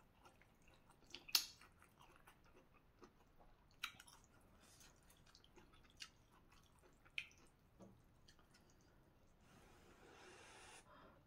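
Quiet chewing of noodle soup with water spinach, with a few sharp clicks, the loudest about a second in. Near the end comes a longer slurp as noodles are sucked up from the chopsticks.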